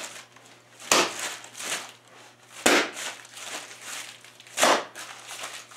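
A plastic-bagged block of stiff pottery clay dropped onto a concrete floor three times, just under two seconds apart: each drop a heavy thud followed by the crinkle of the plastic bag. The dropping jars the regelled plasticizer loose so the stiff clay softens.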